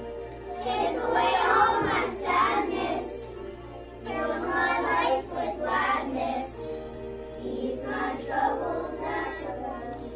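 A class of young schoolchildren singing a song together in unison, in phrases of a few seconds with short breaks between them.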